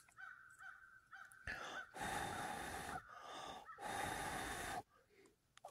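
A person blowing in about four long breaths on a smouldering ember in a tinder bundle to coax it into flame. A faint, quick, repeated chirping runs through the first second and a half.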